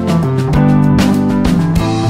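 Instrumental background music led by strummed guitar chords, with a steady beat of about two strums a second.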